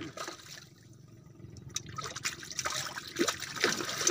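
A hooked fish thrashing at the water surface against a taut line, splashing hard and irregularly. The splashing picks up a little under two seconds in and keeps going.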